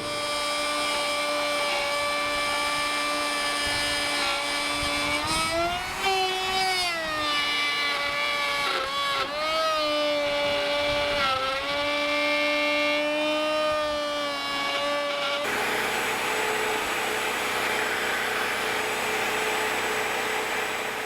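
Tractor running with a steady mechanical whine. The whine rises in pitch about six seconds in and dips briefly a couple of times as the engine and hydraulics take load. After about fifteen seconds it gives way to a hissier, steadier running sound.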